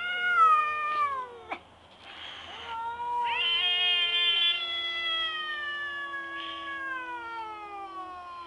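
Long-haired cat yowling at another cat coming for its food: a first yowl falling in pitch that cuts off after about a second and a half, a short hiss, then one long drawn-out yowl that slowly sinks in pitch.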